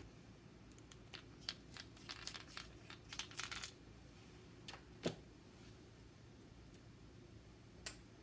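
Faint handling noises of small parts on a bench: a quick run of small clicks and rustles for a few seconds, then a single sharper tap, and one more click near the end.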